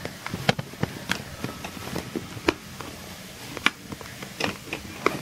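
A doll's cardboard box and its packaging being handled: irregular sharp clicks and crinkles, about one loud one a second with smaller ones between.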